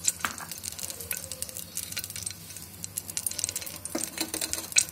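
Ghee heating in an aluminium pressure cooker on a gas stove, sizzling with many small crackling pops.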